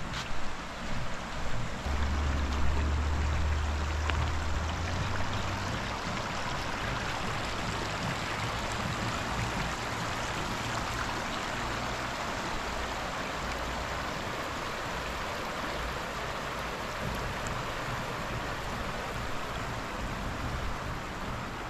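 Shallow river flowing over gravel and stones: a steady rush of water. A low rumble sits under it from about two to five seconds in.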